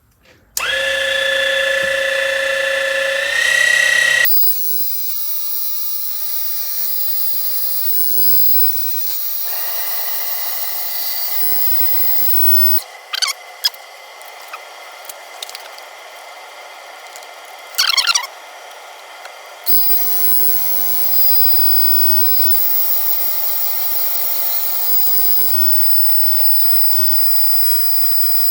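A small micro metal lathe running with a loud, high motor whine that steps up in pitch about three seconds in. About four seconds in it suddenly drops to a quieter steady hum of the turning spindle. Two short, sharp scrapes of the cutting tool come at around 13 and 18 seconds.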